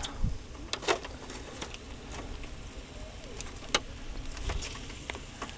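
Boerewors cooking on a charcoal braai: irregular crackles and ticks over a faint sizzling hiss.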